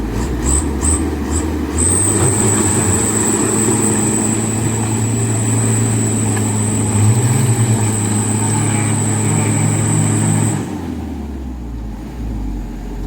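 Mitsubishi Canter HD 125PS diesel truck engine straining under a heavy load, held at steady high revs for about eight seconds with a high steady whine, then dropping back near the end.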